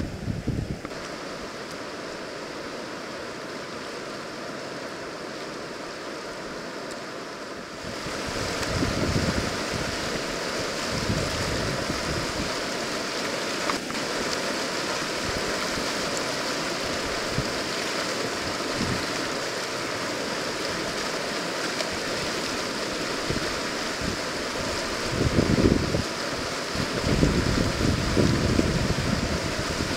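River whitewater rushing steadily through a standing wave, a hiss-like wash with no breaks. About eight seconds in it becomes louder and brighter, and low gusts of wind buffet the microphone now and then, most strongly near the end.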